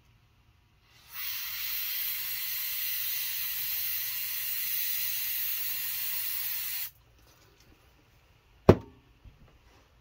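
Aerosol can of brake parts cleaner spraying in one steady hiss for about six seconds, blasting through a used lug nut to clean it. Nearly two seconds after the spray stops there is a single sharp knock, the loudest sound here.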